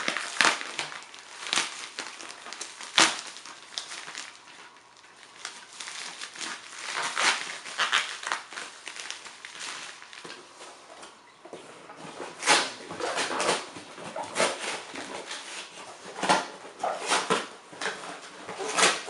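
A shipping package being handled and opened: irregular rustling and crinkling of packing material, with sharper crackles every second or so.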